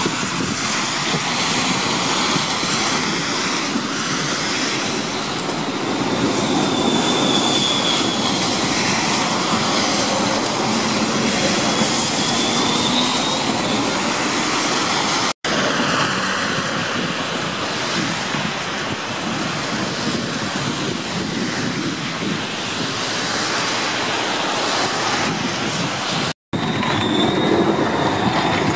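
Tram wheels squealing on curved track, a thin high squeal that comes and goes, over a steady hiss of wet street traffic. Near the end a tram passes close by and the squeal returns.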